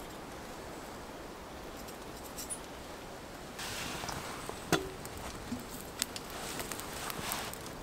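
Wood fire crackling in a small twig-burning stove, with sharp pops and clicks. About five seconds in, a metal kettle is set down onto the wire grill over it with a clink.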